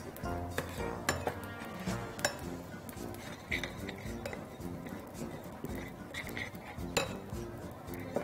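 Metal spoon clinking and scraping against a stainless steel saucepan while stirring sugar as it melts into caramel, with several sharp clinks scattered through. Background music plays throughout.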